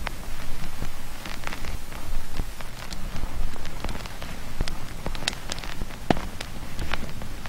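Generated ambient soundscape from a Raspberry Pi noise toy: irregular crackles and pops, like rain or a fire, over a steady low drone.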